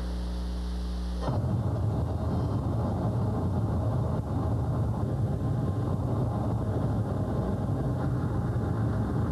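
A steady low hum, then about a second in a dense, steady rumble of an SR-71 Blackbird in high-altitude flight takes over and holds even.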